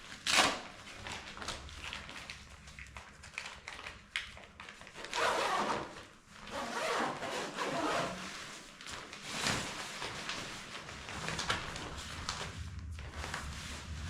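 Handling noises from a nylon camping tent: a sharp knock near the start, then fabric rustling and several scraping sweeps about a second long, with scattered clicks.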